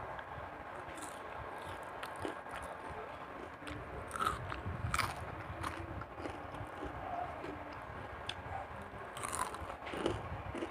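Someone biting into and chewing crispy fried onion rings: crisp crunches, loudest about four and five seconds in and again near the end.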